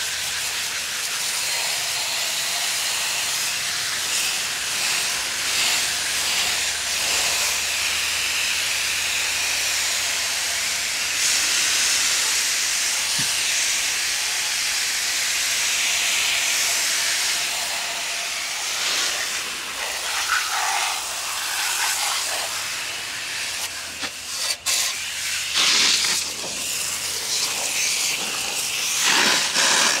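Jet of water from a hose spraying through the aluminium fins of an air-conditioner condenser coil, a steady hiss, rinsing off foaming coil cleaner. In the last few seconds the spray turns uneven, with breaks and surges.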